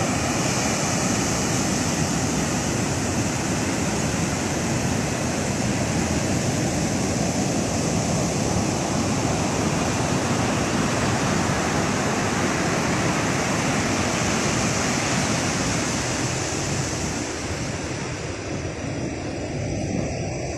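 Heavy surf breaking on a beach, whipped up by an approaching cyclone: a loud, steady rush of crashing waves that eases slightly near the end.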